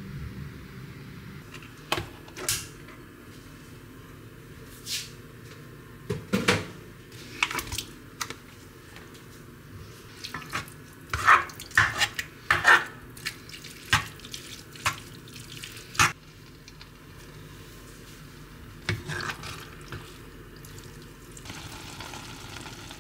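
A spatula knocking and scraping against an enamelled cast-iron pot while mashing blocks of wet tofu. Irregular clacks come over a faint steady hiss, thickest in the middle of the stretch.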